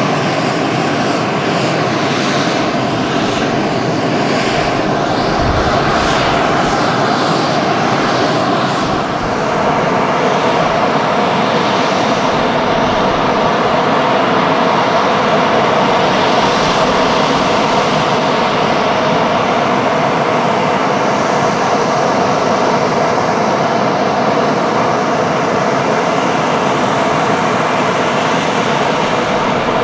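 Bombardier Challenger 604's tail-mounted General Electric CF34-3B turbofan engines idling steadily with the jet parked.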